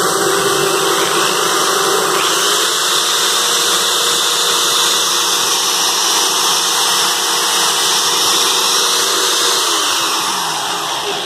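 Corded electric drills, an orange Black & Decker hammer drill and a green drill, running free with no load and their triggers locked on: a steady motor whine, one pitch rising slightly a couple of seconds in and easing back down near the end, then the motors winding down as they are switched off.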